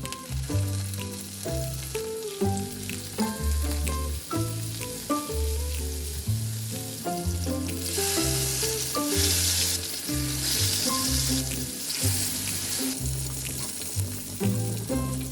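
Mackerel pieces frying in hot oil, a sizzle that grows louder from about eight to thirteen seconds in, over background music.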